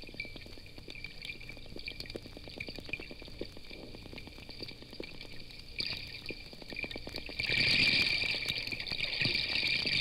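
Hydrophone recording of a school of wild porpoises underwater: faint, rapid trains of clicks over a steady hiss. The sound becomes suddenly much louder and denser about seven and a half seconds in.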